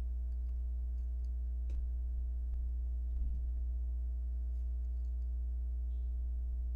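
Steady low electrical-sounding hum with a few faint steady tones above it, and a faint click or two as a thin wire is worked into a 3D-printed plastic armature hand.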